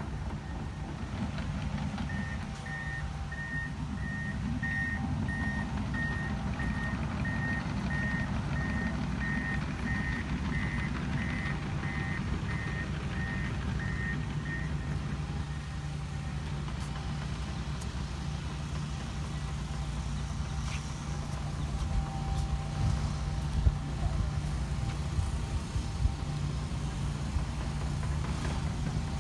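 A work vehicle's reversing alarm beeping steadily, about three beeps every two seconds, stopping about halfway through, over the low steady running of an engine.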